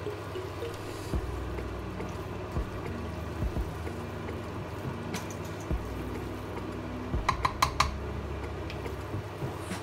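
A wooden spoon stirring and scraping beef and grated carrots around a stainless steel pot, with soft scattered knocks and a quick run of four sharp clicks a little past seven seconds in.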